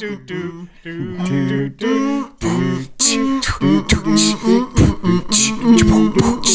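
A person beatboxing with sung, wordless notes: mouth-made drum clicks and snare hits mixed with a hummed or sung melody. It gets louder and busier about three seconds in.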